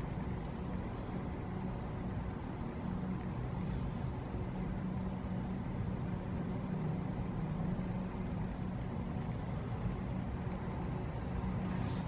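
Steady low rumble and hum with no music or speech, unchanging throughout.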